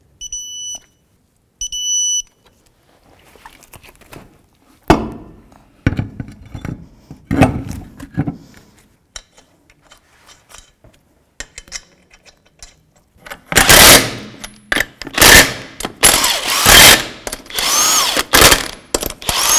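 Two short electronic beeps from a torque wrench as the brake caliper bolts reach 12 foot-pounds, then a few clunks and clinks of the wheel and lug nuts going on. From about two-thirds of the way in, a power impact wrench runs the lug nuts down in several loud bursts.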